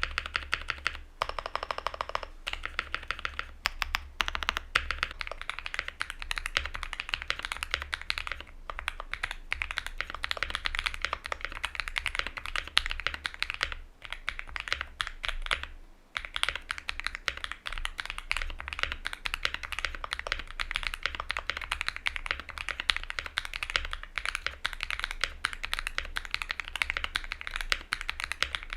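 Continuous fast typing on a Luminkey65 custom mechanical keyboard with lubed, filmed switches on an FR4 plate: a dense run of clacky keystrokes, with two short pauses around the middle.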